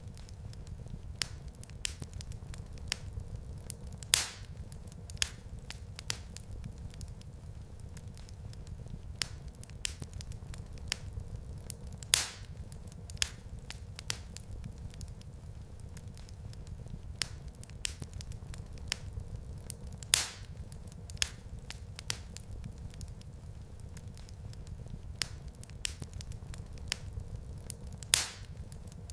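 Wood fire crackling in a fireplace: a steady low rumble of flame with scattered sharp snaps, and a louder pop about every eight seconds.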